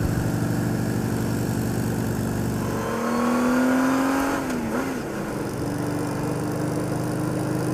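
Motorcycle engine running, its note rising as it revs up about three to four seconds in, then settling back to a steady run.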